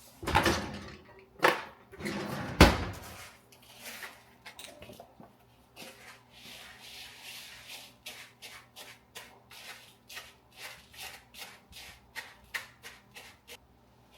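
A few loud knocks and clatters of a bowl and utensils, then a whisk working graham cracker crumbs, sugar and melted butter in a mixing bowl: an even run of short scraping strokes, about three a second.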